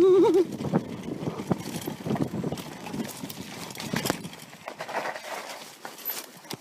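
A mountain bike clattering over rough ground, with irregular knocks and rattles. It opens with the end of a long, wavering shout that stops about half a second in.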